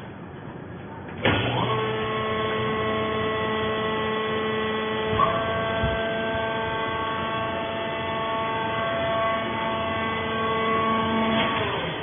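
Hydraulic power unit of a vertical sisal baler press switching on about a second in and running with a steady whine as it lifts the pressing plate. There is a short jolt about five seconds in, and it stops near the end.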